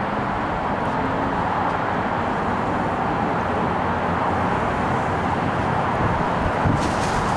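Steady hiss of distant road traffic, with a few short clicks near the end.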